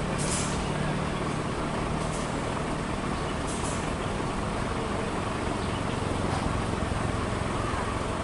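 Heavy diesel dump truck engines running steadily, with three short air hisses in the first four seconds.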